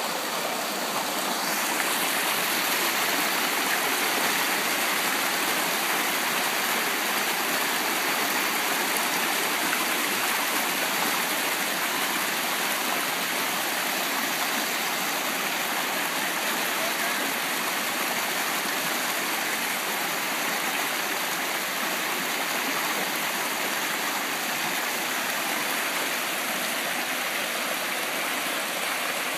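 Rocky stream rushing over boulders in small rapids: a steady, even rush of water.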